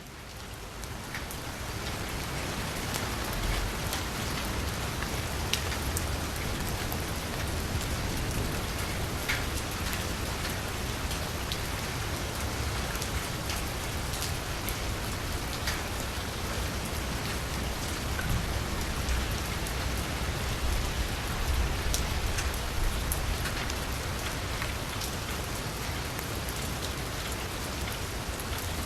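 Steady rain falling on a street, a continuous hiss with scattered individual drops ticking, fading in over the first couple of seconds.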